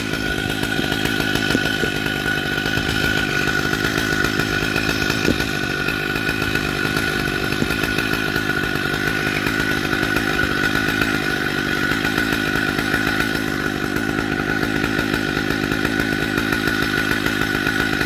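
A large two-stroke Stihl MS 880 chainsaw runs steadily in the cut at the base of an oak trunk, with an even, unbroken engine note.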